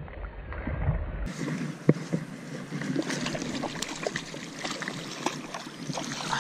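Hooked rainbow trout thrashing and splashing at the surface as it is played to a landing net, over running stream water, with a string of short sharp splashes and one stronger one about two seconds in. Wind rumbles on the microphone for the first second or so.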